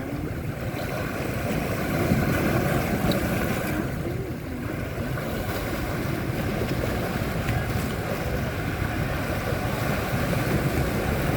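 The sea: a steady rush of wind and water, heaviest in the low end, with no distinct events.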